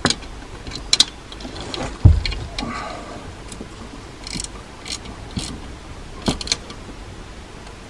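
Metal clicks and knocks from hand tools and car parts being worked on, with one heavy low thump about two seconds in.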